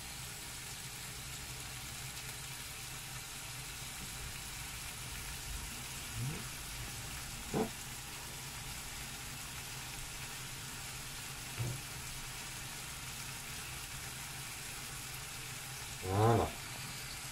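Pan of minced meat, onion and tomato sauce sizzling steadily on the hob, broken by a few brief sounds, the loudest near the end.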